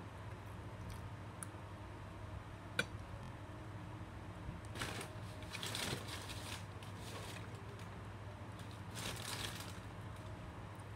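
Paper crinkling and rustling as paper squishies are handled, in two bouts about five seconds in and again near nine seconds, with a single sharp click about three seconds in. A steady low hum runs underneath.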